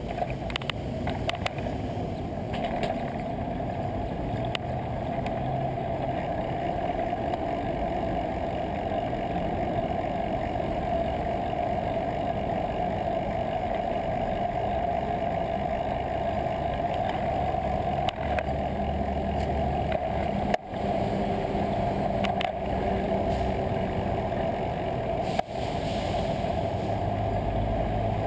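Steady rumble of wind and road noise on a bicycle-mounted camera's microphone while riding in city motor traffic. The sound briefly dips out twice in the last third.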